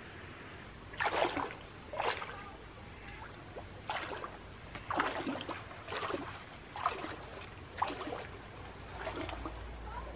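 A person wading barefoot through shallow lake water, each stride making a slosh about once a second.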